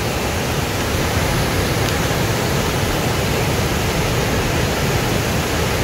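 Steady roar of whitewater from the rapids and waterfalls of the Potomac River at Great Falls, an even rushing hiss with no breaks.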